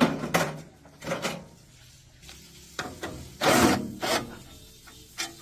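Short, uneven scraping and rubbing strokes from hand work on parts, about five of them, the longest about three and a half seconds in.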